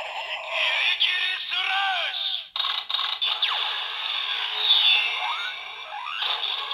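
Kamen Rider Zi-O DX toy weapon in gun mode playing its finisher sequence with the Mirror Zi-O Ridewatch inserted: electronic voice call and music-like sound effects, with a falling sweep partway through and a rising sweep near the end.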